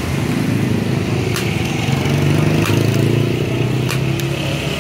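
A motor engine running steadily, its pitch wavering slightly, with three sharp clicks a little over a second apart.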